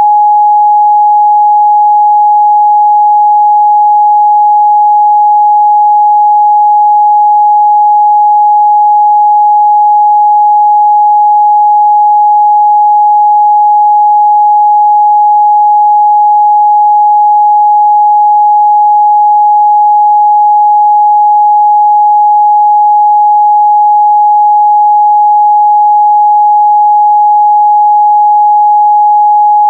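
A steady, loud 836 Hz sine-wave test tone, a single pure pitch held without change.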